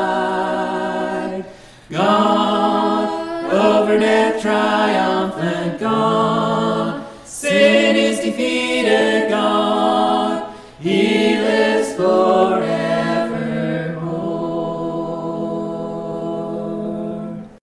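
Unaccompanied choir singing a gospel hymn in harmony, in phrases with short breaths between them. It closes on a long held final chord that stops abruptly near the end.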